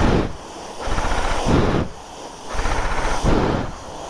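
High-pressure jet-wash lance spraying water onto a motorcycle, a loud hissing, spattering rush that swells and fades about every one and a half seconds as the jet moves over the bike.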